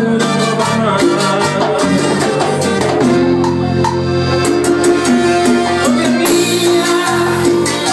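A live Latin dance band playing on an amplified stage: a man sings into a microphone over keyboards and a steady beat of drums, cymbals and shaker-like percussion.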